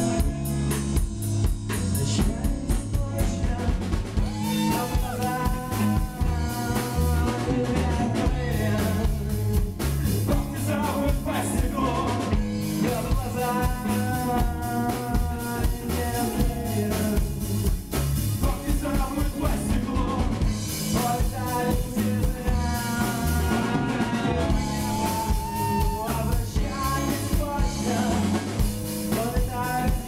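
Live rock band playing: electric guitar, electric bass and drum kit, with a man singing over them from about four seconds in.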